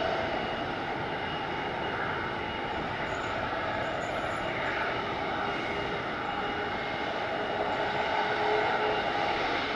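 Beechcraft King Air B200's twin Pratt & Whitney PT6A turboprops at takeoff power during the climb-out: a steady propeller drone with a few thin whining tones.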